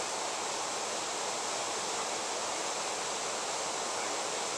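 Steady, even rushing noise that does not change, like flowing water.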